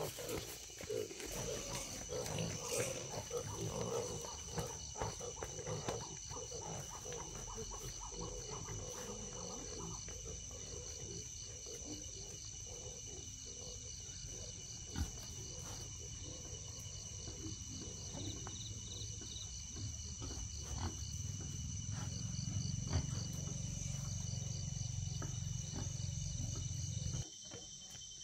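Piglets grunting in a low, continuous rumble that grows louder towards the end and cuts off abruptly.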